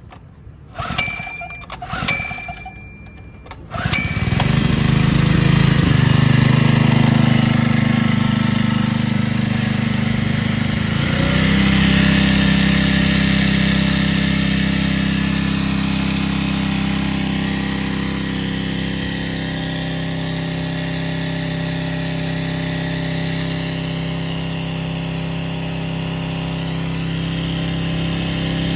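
Maruyama MS160EMM engine-driven high-pressure washer being pull-started: two short pulls, then the small engine catches about four seconds in and runs steadily, its note changing slightly about eleven seconds in.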